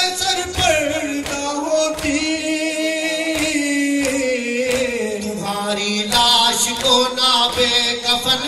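Male voices chanting a noha, an Urdu Shia lament, unaccompanied. The long held lines slide down in pitch about five seconds in, with short sharp knocks sounding through the chant.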